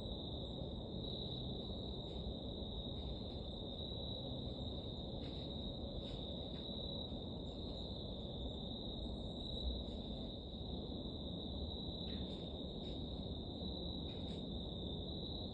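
Steady, unbroken high-pitched chorus of crickets over a low, even background noise, with a few faint ticks.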